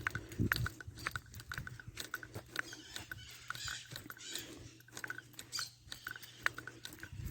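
Farmyard animals making a rapid patter of short clicks and chirps, several a second, over a faint steady low hum.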